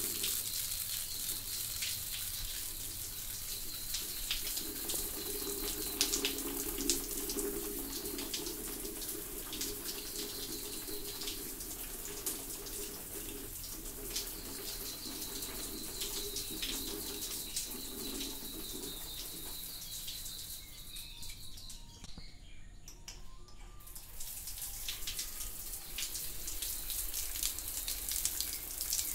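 Shower water running and spattering: a steady hiss with many fine drips and splashes. The spray briefly thins out about three-quarters of the way through, then carries on.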